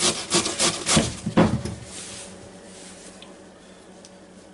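Raw potato scraped rapidly up and down a cheap metal box grater, a rasping stroke about five times a second, stopping about two seconds in.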